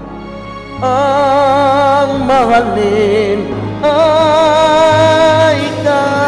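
A man singing into a microphone over musical accompaniment, his voice coming in about a second in and holding long notes with vibrato, the longest through the middle.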